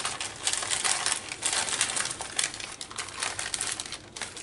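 Small hard craft pieces rattling and clicking as they are handled and dropped back into a box: a dense, irregular run of little clicks.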